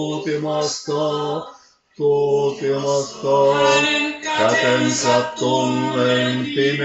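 Male voices singing a lullaby a cappella in four-part harmony. The chord breaks off about a second and a half in, and the next phrase enters half a second later.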